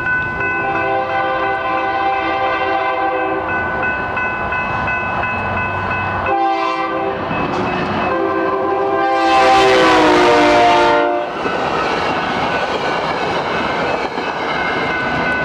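Locomotive's Nathan K3LA five-chime air horn blowing for a grade crossing: a long blast, a short one, then a loud drawn-out blast whose chord drops in pitch as the locomotive passes. Rails clatter under the passing train, over a steady high ringing of the crossing bells.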